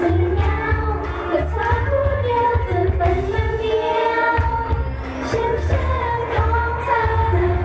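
Female idol pop singers singing into microphones over an upbeat pop backing track with a heavy, pulsing bass beat. The bass drops out for a moment about four seconds in, then comes back.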